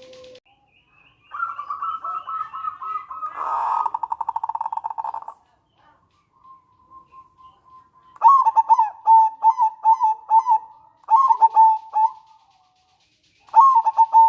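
Zebra dove (perkutut) calling: a run of quick notes that breaks into a fast, rattling trill, then after a pause a series of short, staccato cooing phrases, with one more phrase starting near the end.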